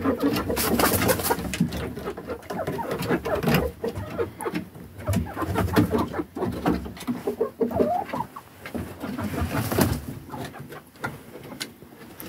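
Domestic hens on their roost making soft, low clucking and murmuring calls, over scattered rustles and knocks.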